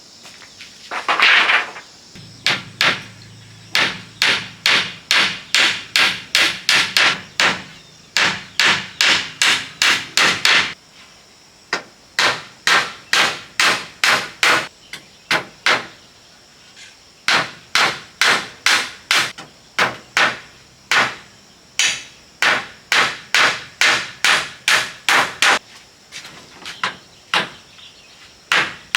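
A hammer striking wood in quick runs of sharp blows, about two to three a second, with short pauses between runs.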